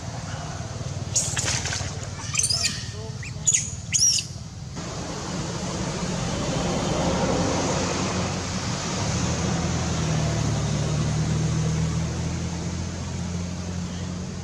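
Monkey screeching: a quick run of four or so high, shrill, arching squeals over about four seconds. After them comes a steady, noisy low rumble.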